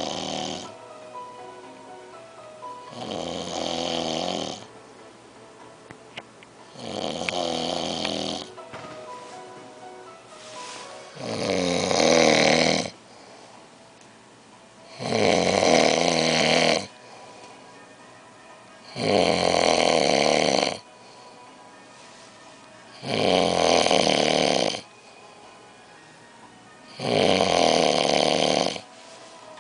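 A sleeping person snoring, one long snore about every four seconds, the snores growing louder after the first few.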